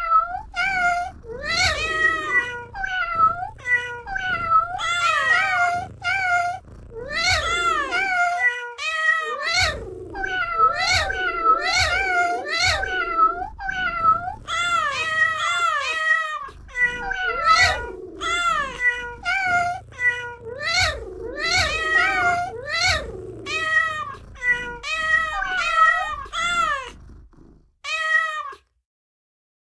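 Cat meows, many in quick succession and often overlapping, each rising then falling in pitch; they stop shortly before the end.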